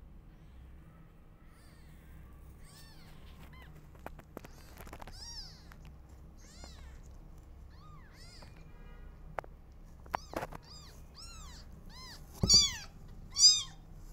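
Newborn kittens mewing: many short, high, thin mews, scattered at first and coming faster toward the end, where the two loudest come about a second apart.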